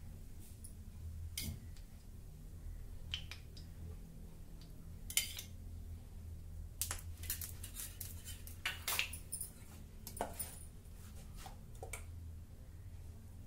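Scattered light clinks and taps of a metal utensil against a small steel bowl and an appam pan as ghee is dabbed into the pan's cups, over a low steady hum.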